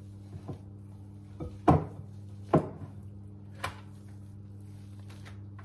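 Hands scooping a sticky oat and peanut butter mixture out of a glass bowl into a parchment-lined baking dish: a handful of knocks and thumps as the bowl and the dough are handled, the loudest about a second and a half in. A steady low hum runs underneath.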